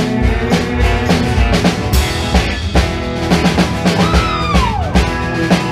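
Live country-rock band playing between sung lines: strummed acoustic guitar, electric guitar and a drum kit keeping a steady beat. About four seconds in, one note slides down in pitch.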